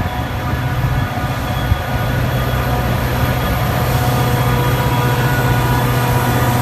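Train running at speed in push-pull operation, its locomotive pushing from the rear: a loud, steady rumble with a constant hum.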